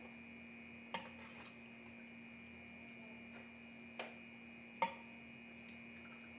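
A serving spoon tapping sharply against a plastic food tray while food is scraped off into a steel pot: one tap about a second in and two more a little under a second apart past the middle, over a faint steady hum.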